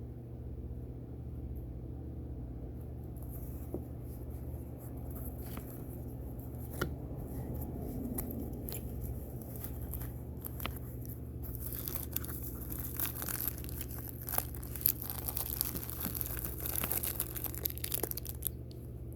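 Plastic accessory packaging crinkling and tearing as it is handled and opened, scattered at first and busiest in the second half, over a steady low hum.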